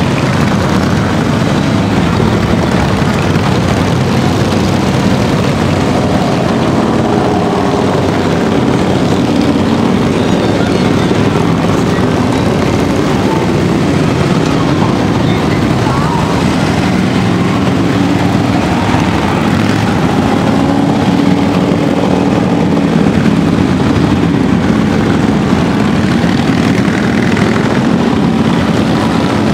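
A long column of motorcycles, largely Harley-Davidson V-twins, riding past at low speed. Their engines blend into a loud, steady, overlapping drone.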